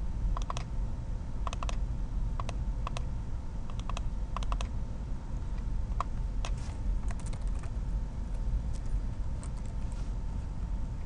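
Irregular keystrokes and clicks from a computer keyboard and mouse, coming singly and in small clusters, over a steady low hum.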